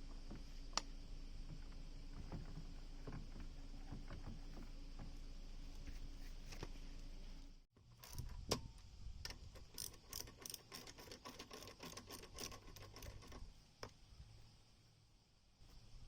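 Scattered light metallic clicks and clinks from parts and tools being handled, over a steady low hum. The sound breaks off abruptly about eight seconds in, then resumes with a quicker run of clicks that thins out near the end.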